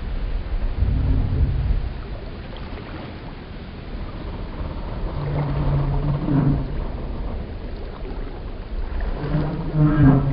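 Wooden boat hulls and pier timbers creaking and groaning in long, low moans, once about five seconds in and again near the end. A low rumble fills the first two seconds.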